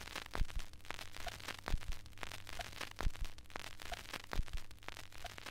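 Faint crackling surface noise over a steady low hum, with scattered clicks and a soft tick about every second and a quarter, as on an old worn recording.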